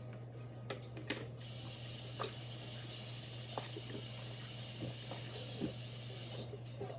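A person chugging seltzer water: a series of short gulp and swallow clicks, with a steady hiss from about a second and a half in until near the end, over a constant low hum.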